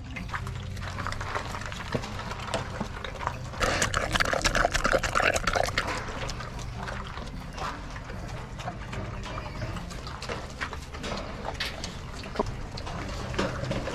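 XL Bully dogs eating wet homemade food from bowls hung on a kennel fence: steady chewing and smacking with many small clicks, busiest about four seconds in.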